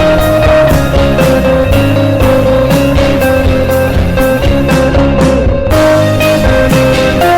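Background rock music with guitar and a steady drum beat, an instrumental passage without singing.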